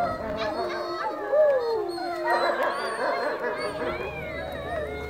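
A wolf pack howling in chorus: long howls gliding up and down in pitch, with one falling howl about a second in, then many voices overlapping from about two seconds in.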